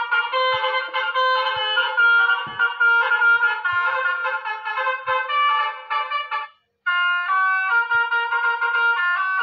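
Basuri telolet bus horn tunes played from an SD card through a miniature RC bus's small sound-module speaker: a stepping, multi-note horn melody that breaks off about two-thirds of the way through, then a new tune starts.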